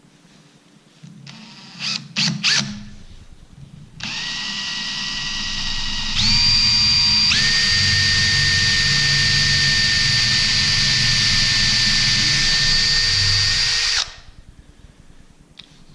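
Power drill boring an angled string hole into a wooden kendama part. A couple of short bursts come about two seconds in, then a steady whine from about four seconds in. It steps up in speed twice and stops suddenly near the end.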